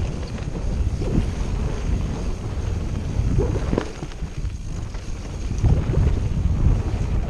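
Wind buffeting the microphone of a mountain biker's camera at speed, over a steady low rumble from the bike on rough ground, with scattered knocks and rattles.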